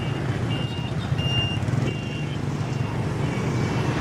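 Street traffic dense with motorcycles: a steady engine drone with short high beeps recurring every half second or so.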